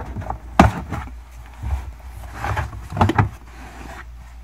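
Carpeted cargo-area trim panel of a Tesla Model S being pulled down and out from under its frame: a sharp snap about half a second in, rustling of the carpet, then a quick cluster of knocks about three seconds in.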